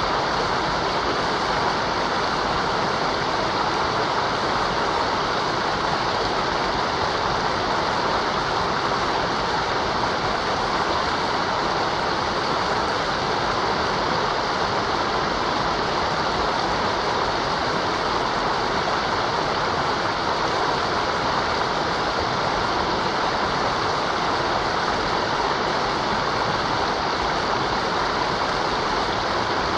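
Mountain river water running in a steady, unbroken rush, with no changes or separate splashes.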